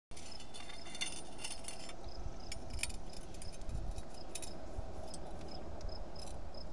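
Scattered light metallic clinks and rattles of hand tools being handled on the engine, loudest about a second in and again near three and four and a half seconds. Behind them an insect chirps in a steady quick rhythm over a low rumble.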